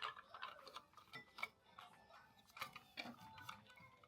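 Faint, irregular clicks and taps of small plastic and metal parts being handled while the smart lock is worked on.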